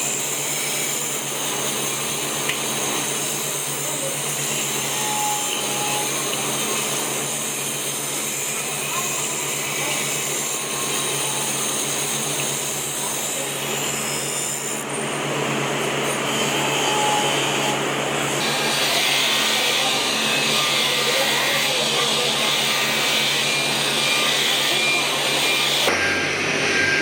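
A power tool motor running steadily, its sound shifting abruptly about halfway through and again near the end.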